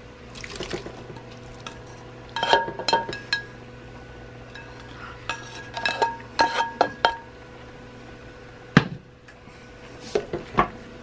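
Fried ground beef being scraped from a pan into a ceramic slow-cooker pot: a utensil scraping and knocking against the pan and pot, with clusters of ringing clinks and one sharp knock near the end.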